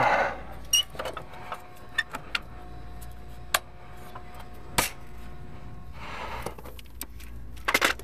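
Scattered clicks, light knocks and rattles of hands handling hardware: a wall-mounted electrical box on an air-conditioner condenser and a plastic organizer box of wire nuts. The sharpest knocks come about three and a half and five seconds in, with a quick run of clicks near the end.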